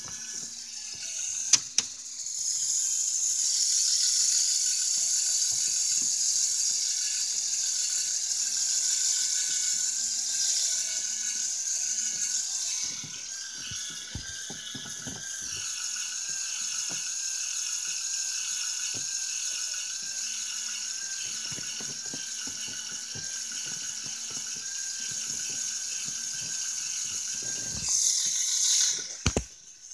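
Lego Technic bucket wheel excavator running: its small electric motors whir steadily while the plastic gears and crawler tracks click and rattle. The whine shifts in pitch about halfway through, and a short burst of louder knocking comes near the end.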